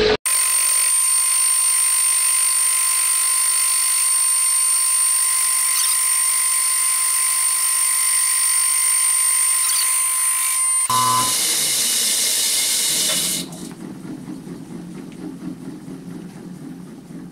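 Milling machine spindle driving a large fly cutter with a half-inch lathe-bit tool through a face cut on a metal block: a loud, steady high-pitched whine of the cut. The sound changes about 11 s in, then drops sharply near 13 s to a low rumble that dies away as the spindle winds down.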